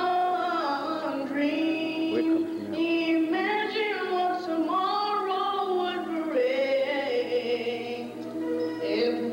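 A group of voices singing a song together, with long held notes.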